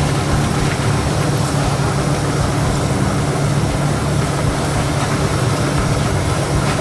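A steady, low machine hum that runs on without change.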